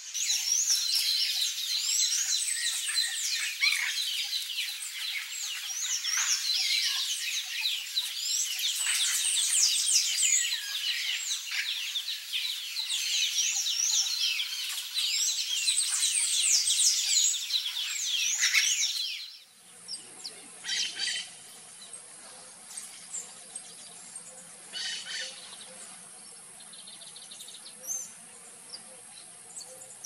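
Yellow-faced parrot calling: a long, dense run of loud, quickly repeated squawks that stops abruptly about two-thirds of the way in. After that, only a few faint, scattered bird calls over a steady high whine.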